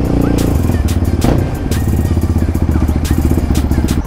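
Sport quad bike engine running at low revs with a steady, throbbing beat as the quad is ridden slowly, with a few clicks of clatter. The engine note stops right at the end.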